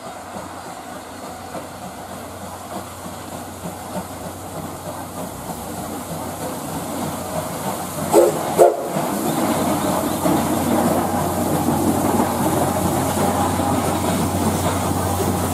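A train approaching and growing steadily louder, with two short whistle toots about half a second apart roughly eight seconds in.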